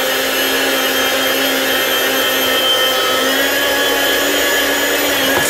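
Chef's Choice Model 609 electric food slicer running with a steady motor hum, its spinning blade cutting a slice off a boneless ham.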